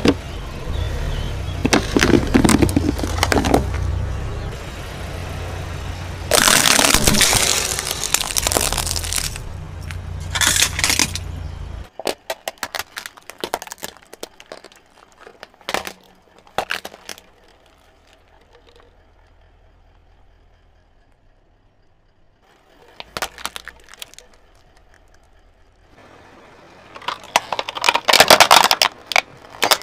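A car tyre rolling over and crushing things: a cardboard gift box crunching and cracking in loud bursts over a low rumble, then scattered sharp snaps and pops as plastic toy fruits are run over, and near the end loud cracking as plastic toy dump trucks break under the tyre.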